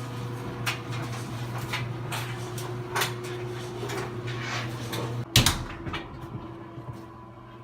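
GE electric dryer running under test: a steady motor hum with the drum tumbling and knocking irregularly. About five seconds in there is a loud clunk, after which the tumbling knocks fade and the running sound drops.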